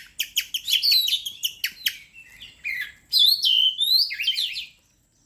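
Oriental magpie-robin (kacer) in full song: a fast, varied run of high, downward-sliding whistles and chirps that stops abruptly near the end.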